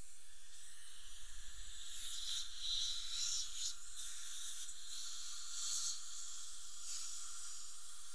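Dental suction hissing steadily, swelling louder around two to four seconds in and again around six seconds.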